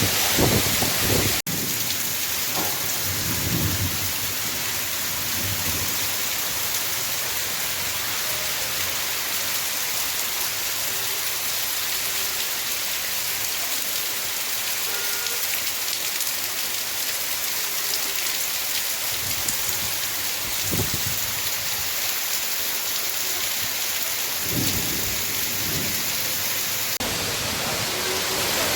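Heavy rain pouring steadily in a downpour, with a few short low rumbles along the way.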